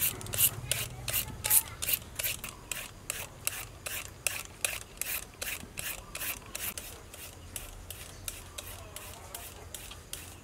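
Julienne peeler scraping strokes shredding vegetables into a metal bowl, a rasping scrape about three times a second that grows fainter near the end.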